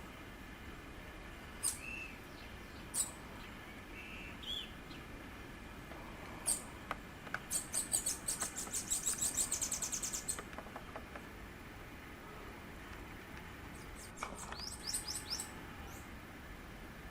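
Bananaquit calling with scattered short, high notes, then singing a rapid, thin, high trill of about three seconds near the middle, and a shorter burst of notes later.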